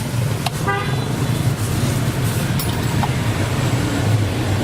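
Road traffic with engines running steadily, and a short horn toot about a second in.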